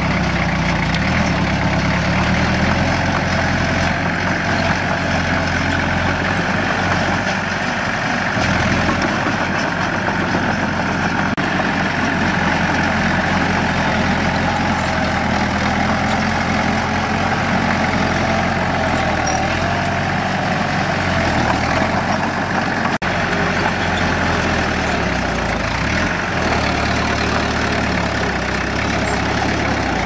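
Diesel engine of heavy earthmoving machinery running steadily, its note shifting slightly a few times.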